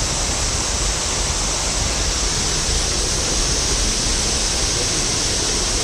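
Steady rushing of a fast-flowing woodland stream tumbling over rocks.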